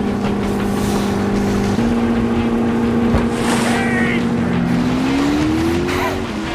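Motorboat engine running at speed over rushing water. Its drone steps up in pitch about two seconds in and rises, then falls back near the end.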